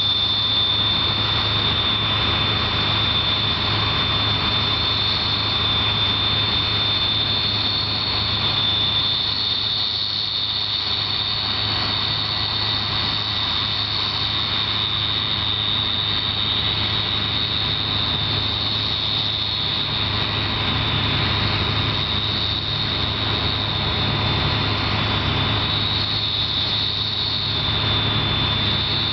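Combine harvester running steadily during corn harvest: a constant high-pitched whine over a low engine hum.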